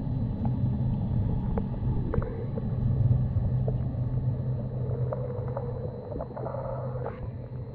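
Muffled underwater rumble with a steady low hum, heard through a camera submerged in a manatee pool, with scattered clicks and a few short squeaky tones, the longest about six to seven seconds in.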